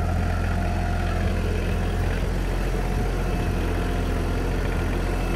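Compact tractor engine running steadily at an even speed, a deep constant drone with a faint steady whine above it, while the tractor powers a rear-mounted post hole auger.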